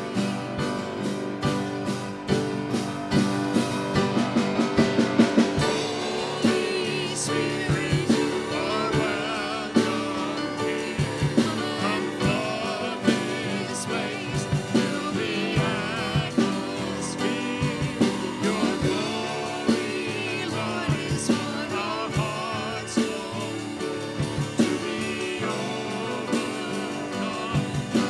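Contemporary worship song sung by a vocalist with band accompaniment, with a steady drum beat throughout.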